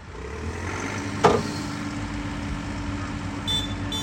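Full-size excavator's diesel engine running and picking up just after the start, with a single sharp bang that rings briefly about a second in. A few short high beeps sound near the end.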